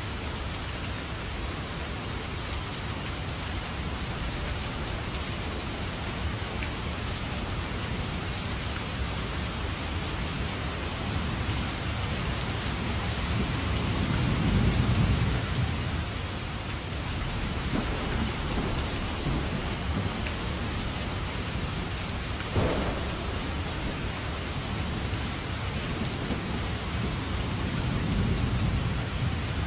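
Heavy rain pouring steadily onto pavement and foliage. Low thunder rumbles in a swell about halfway through and again near the end, with a single sharp crack about two-thirds of the way in.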